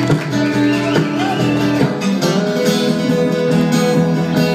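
Live band playing, with an acoustic guitar strummed over a stand-up bass and held sustained notes.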